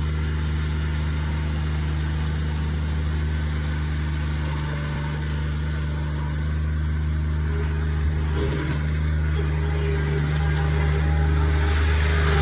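Bobcat loader's engine running steadily, growing slightly louder over the last few seconds.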